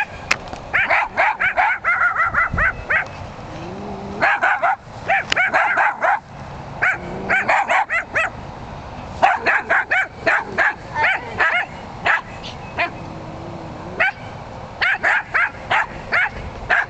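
Jack Russell terriers yapping at cattle in rapid volleys of short, sharp barks, with brief pauses between the volleys.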